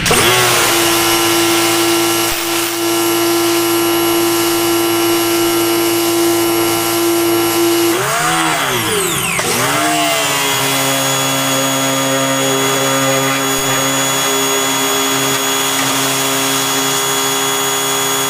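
Pressure washer running steadily with the hiss of its spray blasting loose paint and surface rust off a pickup's roof; its pitch sags and wobbles about eight seconds in, then settles to a steady run again.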